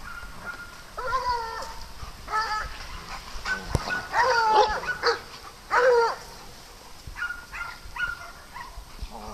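Dogs barking and yipping in play: a series of short barks, loudest about four to six seconds in, with a few thin high-pitched whines between them.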